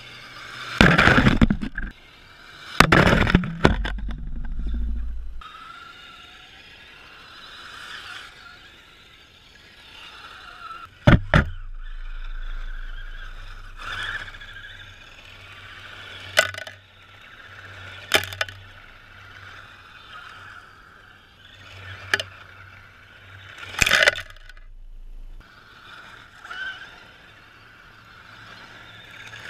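A Tamiya radio-controlled scale truck's electric motor whining as its tires spin and spray loose gravel, rising and falling as it passes. Several loud sharp knocks and clatters break in, the strongest about a second in and again around three seconds in.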